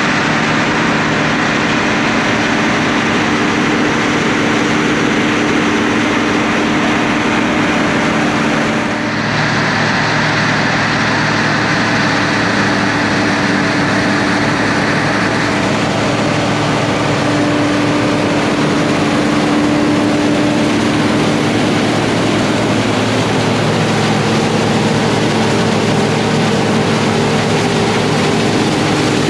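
Tractor diesel engines and forage harvesting machinery running steadily under load, a steady low drone with a loud rushing hiss. There is a brief dip about nine seconds in.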